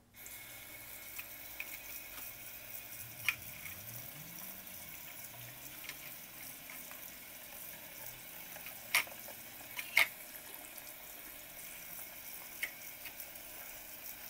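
Kitchen tap running onto a wicker basket of purple dead nettle, the water coming on suddenly and splashing steadily through the leaves as a hand swishes them about. A few sharp clicks stand out over the running water.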